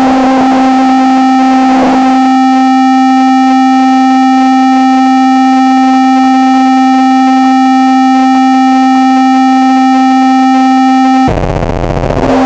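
Harsh noise electronic music, very loud: a single distorted synthesizer tone held steady at one low pitch with a dense buzz of overtones, after a noisy opening. Near the end it cuts out briefly for a burst of low rumbling noise, then comes back.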